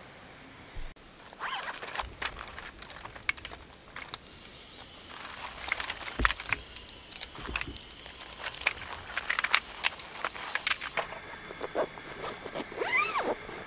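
A nylon camping-table storage bag being opened and rummaged through, with fabric rustling and irregular clinks and knocks as the aluminium roll-top and frame parts are taken out and set down on gravel.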